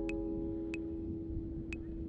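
Background music: a held chord rings on, its higher notes fading out within the first second while one lower note sustains. Three sharp ticks fall through it.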